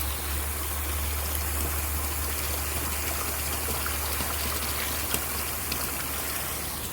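Water gushing steadily from a koi pond filter's outlet into the pond.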